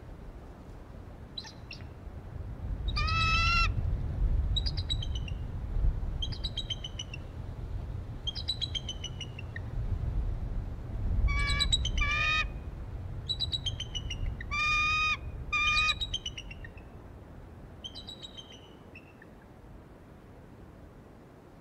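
Bald eagles calling: high, piping chatter in repeated bouts. Several loud, strained notes are mixed with runs of short falling chirps, over a low rumble of wind on the microphone. The calling fades out in the last few seconds.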